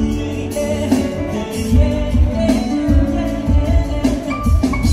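Live band music with a singer over electric guitar and keyboard, carried by a steady low beat.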